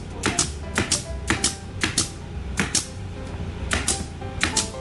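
Pneumatic nail gun firing repeatedly, a dozen or so sharp shots, often in quick pairs, as it drives brads through a glued board into merbau hardwood to join two countertop pieces.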